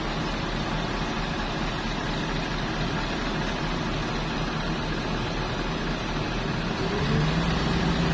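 Excavator's diesel engine running steadily, growing louder with a new low tone about seven seconds in.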